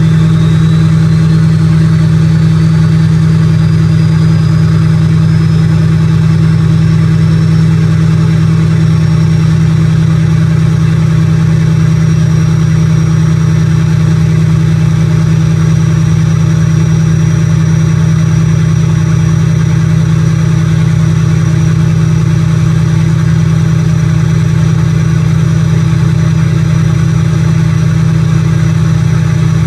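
2005 LLY Duramax 6.6-litre V8 turbodiesel running at high idle after a cold start, heard at its exhaust stack. The engine note is loud and steady, with a high whine that climbs slowly over the first ten seconds or so and then holds.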